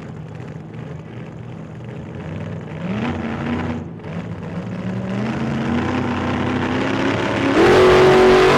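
A car engine accelerating, its pitch climbing, falling back once as it shifts gear, then climbing again while it grows louder; it turns suddenly much louder near the end.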